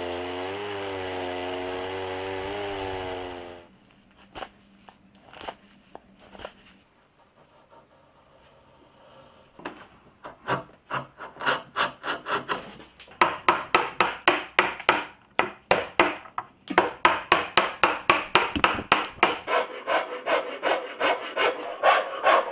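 Chainsaw running as it cuts through lime wood, its pitch wavering, stopping about three and a half seconds in. After a few scattered clicks, a hand tool works wood in quick back-and-forth strokes, about four a second from about thirteen seconds in.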